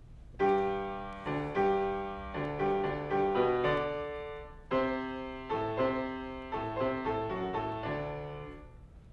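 Grand piano played solo, starting about half a second in: a slow melody over chords, each note struck and left to ring and fade. A second phrase begins with a fresh loud chord just under five seconds in.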